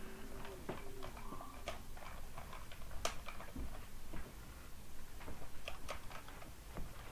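Light, irregular plastic clicks and taps from a white toy robot dinosaur being handled, its head and parts pressed by hand.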